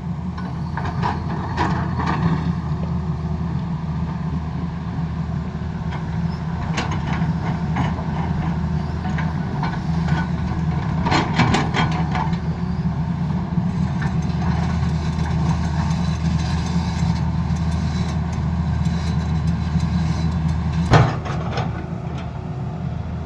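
Tata Hitachi excavator's diesel engine running steadily under work, with scattered knocks and scrapes; one sharp knock near the end is the loudest.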